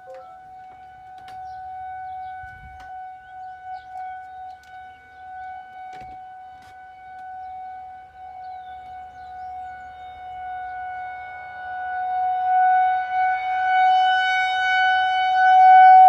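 Outdoor tornado warning siren sounding one steady, unwavering tone, swelling and growing louder over the last few seconds as it sweeps around toward the listener. Really loud at its peak.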